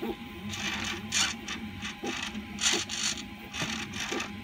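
Hobby RC servos driving R2-D2's 3D-printed utility arms, whirring in several short, irregular bursts as they move the arm in jerks under a basic servo tester.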